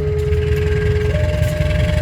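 Electronic two-tone warning alarm, one pure tone switching between a low and a higher pitch about every second and a quarter, over a heavy low rumble.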